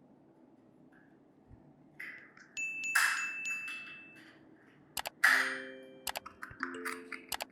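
Metal parts clanking and clinking: a few hard knocks, each leaving a short ringing tone, loudest about three seconds in and again just after five seconds, then a run of quicker light clicks.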